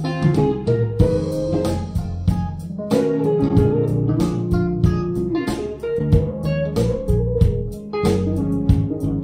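Guitar music with a deep bass line, played through large home horn loudspeakers with 15-inch bass drivers and 10-inch subwoofers and recorded in the room. Just before the end the music breaks off and starts again with the subwoofers switched off, leaving the main speakers to carry the bass alone.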